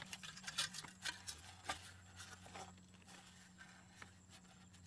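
Faint crinkling and clicking of a flattened aluminium drink can being handled on dry grass, with grass rustling. The clicks are densest in the first two seconds, and a steady low hum runs underneath.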